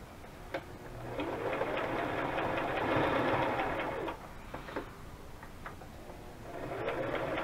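Electric sewing machine stitching lace onto a paper tag in two runs: the first starts about a second in, its motor pitch rising and then falling over about three seconds before it stops; after a pause with a few clicks, a second run starts near the end.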